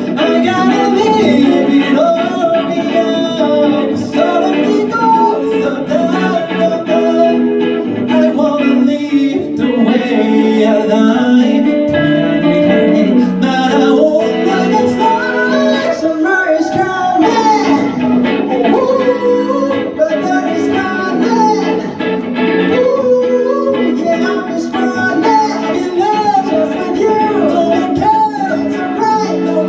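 A song: singing over guitar accompaniment.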